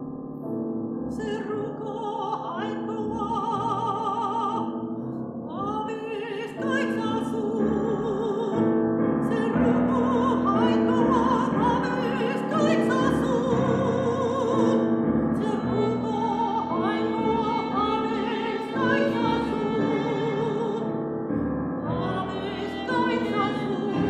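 Operatic soprano singing with a wide vibrato, accompanied by piano, violin and cello, in a contemporary classical art song.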